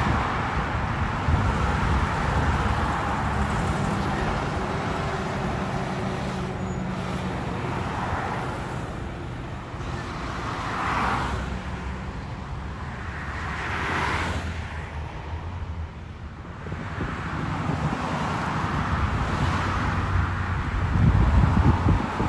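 Road traffic on a multi-lane road: cars and fire trucks driving past. There is a low engine rumble near the start and again near the end, and two vehicles swell and fade as they pass about halfway through.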